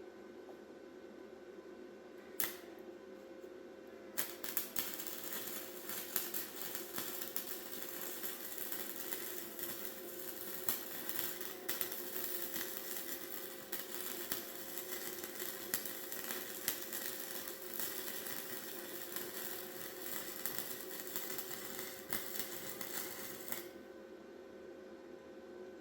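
Welding arc crackling and sizzling steadily for about twenty seconds, with a short click a couple of seconds before it starts and an abrupt stop near the end.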